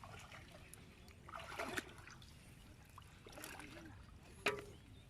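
Faint water trickling and splashing in a few short soft bursts, as a wet fishing net and its catch are handled in shallow water.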